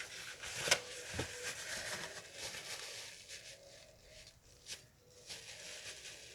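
Rustling and handling noise with a few sharp taps, about a second in and again near five seconds.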